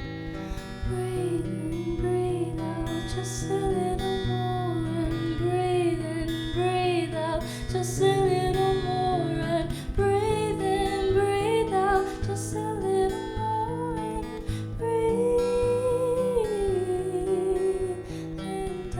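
Live acoustic guitar strummed in slow chords with a voice singing long, wavering held notes over it.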